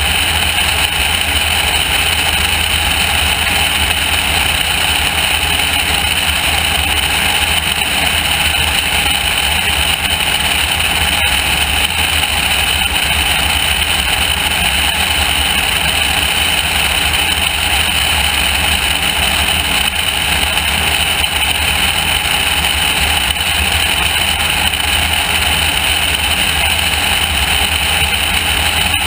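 Light aircraft's engine and propeller in steady cruise, heard from a camera outside under the wing, mixed with loud steady wind noise over the microphone.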